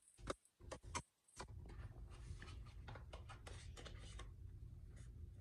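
Faint handling noise from unboxing: scattered light clicks and rubbing as the screwdriver's plastic case and packaging are handled.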